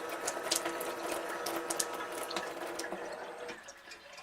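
Water running through a portable propane instant water heater, with a steady hum from the unit and scattered clicks and drips. The flow and the hum stop about three and a half seconds in.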